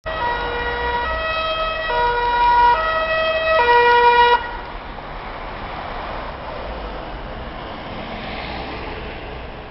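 Emergency vehicle's two-tone siren alternating between a high and a low note, each held just under a second, cutting off suddenly about four seconds in; after that, the steady noise of passing road traffic.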